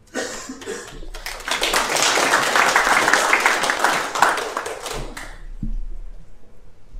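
Audience applauding, swelling to a peak and dying away after about five seconds, followed by a single low thump.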